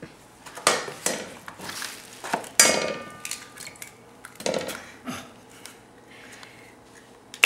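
Eggs being cracked against the rim of a stainless steel saucepan: a series of sharp knocks, the loudest about two and a half seconds in, after which the pot rings briefly.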